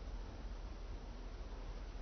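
Faint steady background noise with a low hum, and no distinct event: room tone between strikes.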